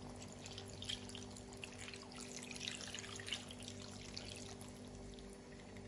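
Water poured in a thin stream into a pot of chicken wings and curry sauce: a faint, steady trickle and splash over a low steady hum.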